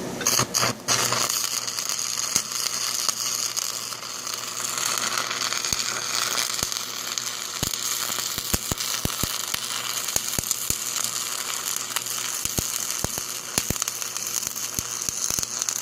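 Electric arc welder running a bead on steel, a steady crackling hiss with sharp pops. It stutters on and off for about the first second as the arc strikes.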